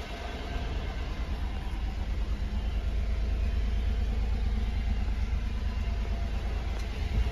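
1991 Honda Acty kei truck's three-cylinder engine idling, a steady low rumble heard from inside the cab.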